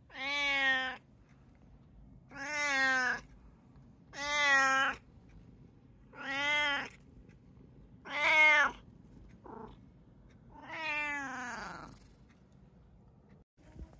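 Brown tabby cat meowing loudly over and over: six long meows about two seconds apart, each rising then falling in pitch, with a short faint one between the fifth and sixth; the last meow is more drawn out and slides down at its end.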